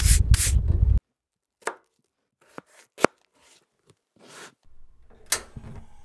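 A knife scraping along a fish on a cooler lid for about the first second, then it cuts off. After that come a few sharp clicks and a short hiss as a hand lighter lights a portable gas burner, followed by a faint low rumble from the burner flame near the end.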